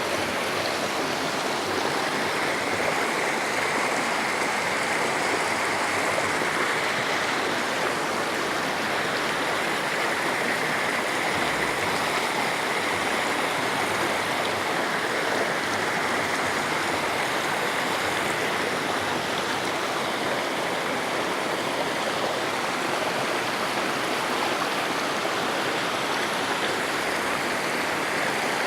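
Steady rush of fast-flowing water, an even, unbroken wash of noise without pauses.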